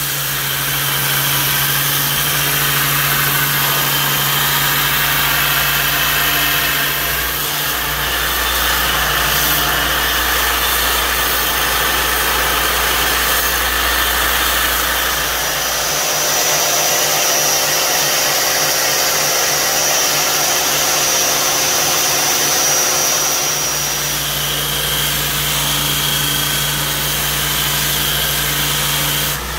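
Belt grinder running with a steel knife blank pressed against its abrasive belt, throwing sparks: a steady motor hum under a rough grinding noise. The grinding changes character several times as the blade is moved across the belt.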